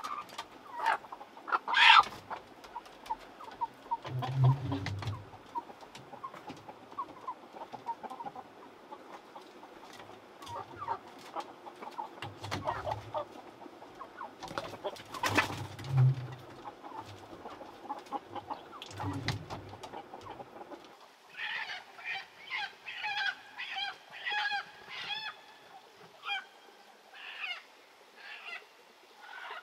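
Chickens clucking and squawking while being handled, with wings flapping and a few low thumps. About two-thirds of the way through this gives way to a rhythmic chorus of night-time animal calls repeating several times a second.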